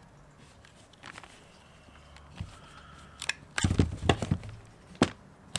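Hand cutters working on the cells of a water-damaged lithium-ion battery pack: a series of sharp clicks and crunches, bunched together a little past the middle, with a few single snaps either side.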